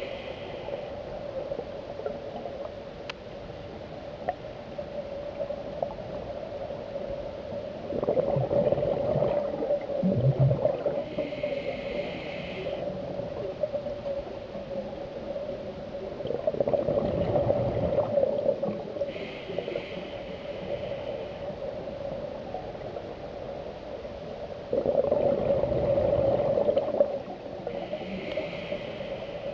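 Scuba regulator breathing underwater: three bursts of exhaled bubbles gurgling, about eight seconds apart, alternating with the short hiss of inhalations through the demand valve. A steady hum runs underneath throughout.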